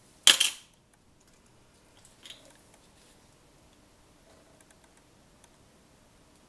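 Clear plastic coin capsules clicking against each other as one is picked out of a tray: a sharp clatter just after the start and a softer click about two seconds later, then faint ticks of handling.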